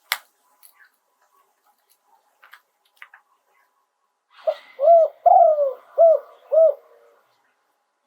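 Spotted dove cooing one phrase of about five hollow notes, the middle note longer and falling. A few faint clicks come before it.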